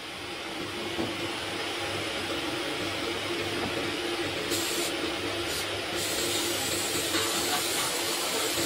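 Hand-held sandblast gun blasting abrasive at a rusty metal part inside a blast cabinet: a steady hiss of air and grit over a low hum, swelling up over the first couple of seconds, with brighter spurts of hiss about halfway through.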